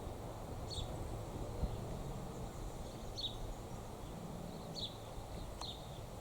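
Wild birds giving short, high chirps, about five of them spread out a second or more apart, over a steady low outdoor rumble.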